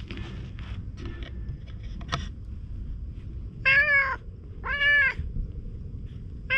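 Stray tabby cat meowing twice, about a second apart, each meow short and rising then falling in pitch, with a third meow starting at the very end.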